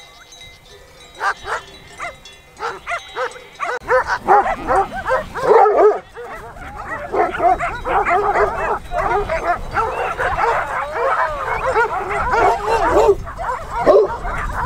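Several shepherd dogs barking. Separate barks start about a second in, and from about four seconds on they merge into a continuous, overlapping chorus of barking.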